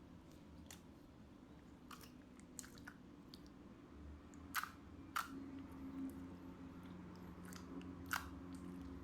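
Fluffy slime being squished and stretched by hand, giving scattered sharp pops and crackles, the loudest a pair around the middle and one near the end, over a steady low hum.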